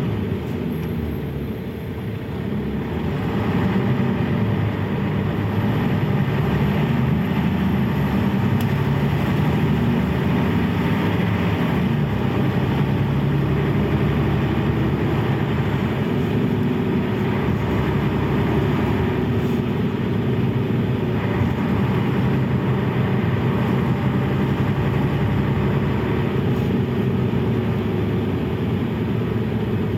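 The diesel engine of a 1993 Mercedes-Benz O 405 city bus running. It dips slightly about two seconds in, then grows louder and holds a steady level.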